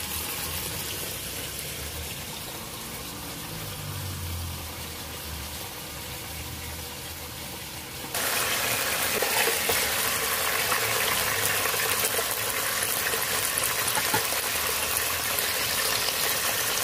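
A steady rushing noise for about the first half. Then, after an abrupt cut, a louder steady sizzle: a whole chicken searing in hot olive oil in a nonstick pot.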